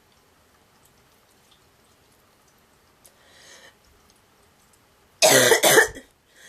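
A woman's goose-like cough: a breath drawn in, then about two seconds later a loud double hack, and another faint breath at the end.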